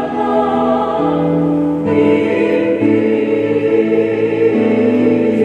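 Mixed choir of women and men singing a slow hymn in harmony, holding long notes and moving to a new chord about two seconds in.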